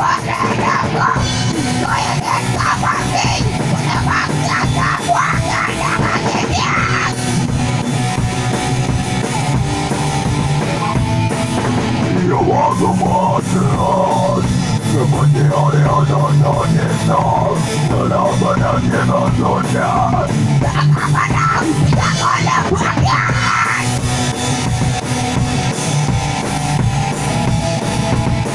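A rock band playing live in a small rehearsal room: electric guitars and a full drum kit, with vocals sung into the microphone in long stretches.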